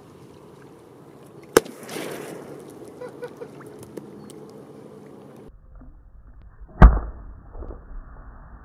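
Firecrackers packed inside a matchstick model going off. A sharp bang comes about a second and a half in, followed by a short blast of noise and scattered small pops. Near seven seconds there is a louder, deeper and more muffled bang, with crackling after it.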